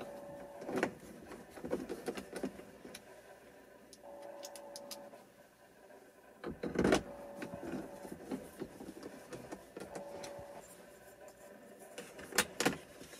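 Plastic clicks, taps and knocks of a BMW X3 dome light assembly being pressed back into the roof lining and screwed in, with the loudest knock about seven seconds in and a quick pair of clicks near the end.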